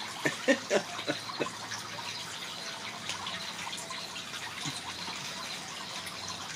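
Kitten nosing and pushing into a woven wicker tunnel toy: a few light crackling taps in the first second or so, over a steady faint hiss.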